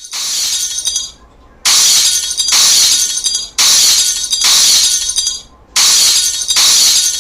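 Glass shattering, over and over: loud crashes about a second long with a high tinkling spray, coming in quick pairs roughly every two seconds.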